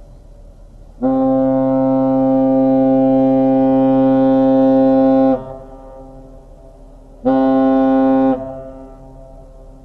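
Lake freighter's air horn blowing one long blast of about four seconds, then a short blast: a deep, steady horn signal.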